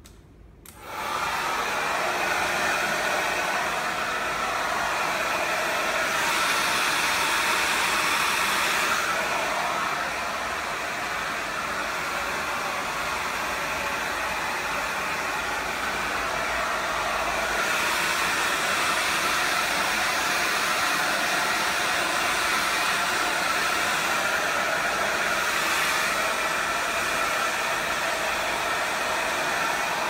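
Louvredo Fukugen hair dryer switched on about a second in and blowing steadily while drying a client's hair, its level shifting slightly now and then.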